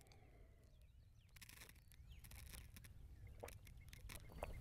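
Near silence: a man drinking from a water bottle, with only a few soft clicks.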